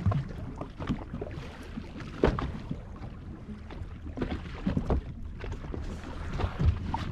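Sound on a boat on open water: a steady low rumble with wind and water noise, broken by a few irregular knocks and splashes.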